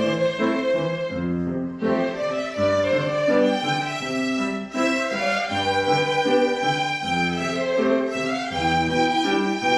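Bowed strings, led by violin over a lower sustained line, playing a slow, legato melody with notes held and changing every half second to a second.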